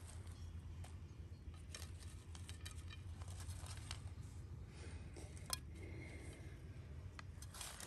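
Scattered light clicks and taps as fries and chicken are arranged on a ceramic plate, one sharper click about five and a half seconds in, over a faint steady low rumble.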